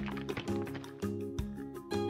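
Instrumental background music with repeating chords and a steady beat.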